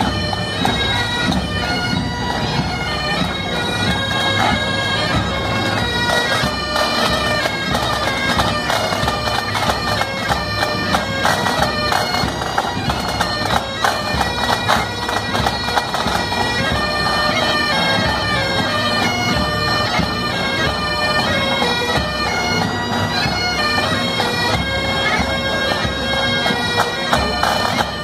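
Pipe band playing: bagpipes sound a steady drone under a moving melody, with snare and bass drums keeping time.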